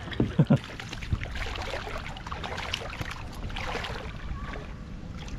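Water sloshing around a small craft on a lake, with wind on the microphone and three dull thumps about half a second in.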